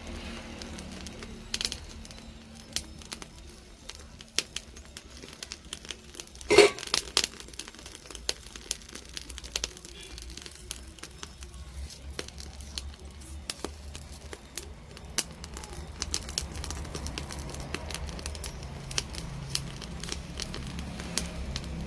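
Open fire crackling with irregular sharp pops as goat legs are singed in it, with one louder burst about six and a half seconds in.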